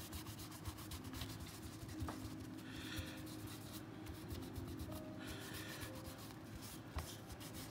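Paper towel damp with nail polish remover rubbing over the slide of a Umarex Glock 19 BB pistol, faint and scratchy, with two light clicks. The towel is wiping excess base coat off the surface around the engravings.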